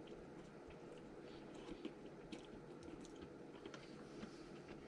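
Faint chewing of ramen noodles and a wrap, with scattered small clicks.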